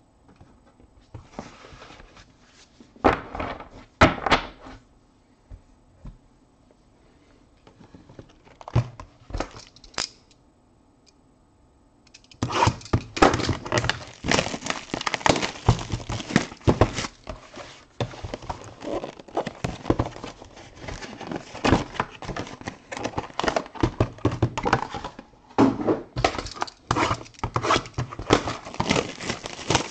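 Trading-card boxes and packs being handled and opened on a table: a few separate knocks in the first ten seconds, then, from about halfway on, steady clattering, tapping and rustling of cardboard and pack wrappers.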